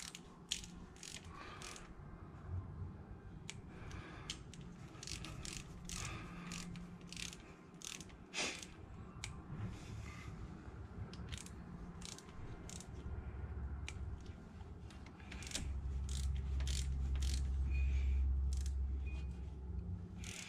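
Torque wrench ratcheting in short runs of clicks as rocker cover bolts are snugged down to a first pass of about 25 inch-pounds. A low rumble swells up in the last few seconds.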